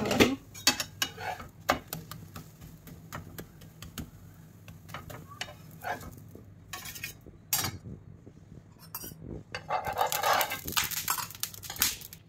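Metal spatula scraping and clinking on a flat griddle (tawa) as a lentil chila is turned and lifted off, in scattered short strokes with a longer stretch of scraping near the end.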